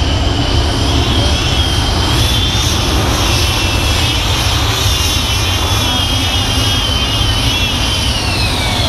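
Tractor-pulling engine running at full power: a heavy rumble under a high-pitched whine that climbs slightly, then slides down near the end as the engine comes off power.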